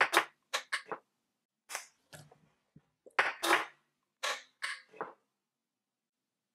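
A woman's short, sharp startled gasps and breathy exclamations, about a dozen in quick clusters over the first five seconds. She is reacting in shock to a rollerball lip oil that has burst and sprayed everywhere.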